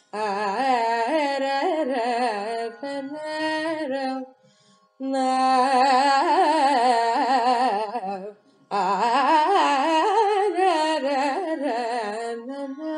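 Solo female voice singing a Carnatic kirtana in raga Kapi, adi tala, in long phrases with heavy pitch ornaments (gamakas), breaking off briefly about four seconds and eight seconds in.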